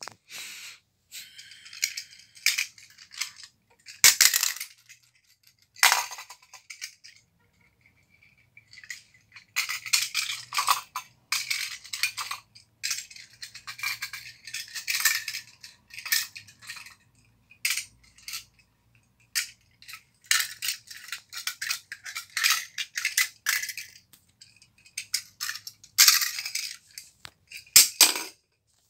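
Small toy cars clicking, clattering and scraping against a hard floor and each other as they are picked up, pushed and set down, in quick irregular bursts with a few sharper clacks.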